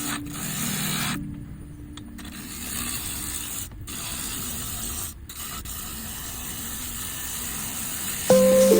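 Wood lathe spinning a plum-wood blank, with a steady rasping hiss as it is worked, broken by several brief dropouts. Music comes in loudly near the end.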